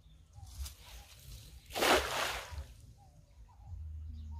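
Cast net (tarrafa) thrown into a shallow pond, its weighted edge hitting the water with one splash about two seconds in.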